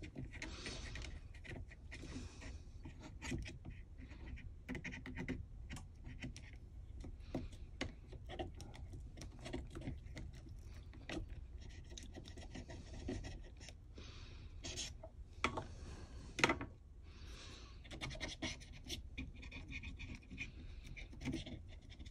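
Faint scratching and rubbing with many small scattered clicks, from hands and tools working over an amplifier chassis.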